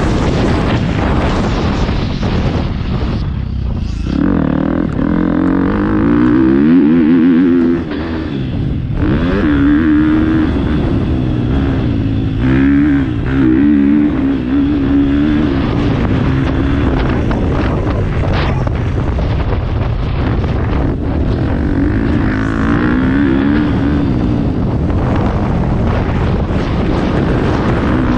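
Motocross bike engine heard from on board, revving up in pitch through the gears and dropping back each time the throttle is closed, again and again as the bike is ridden around the track. The sharpest drop comes about eight seconds in.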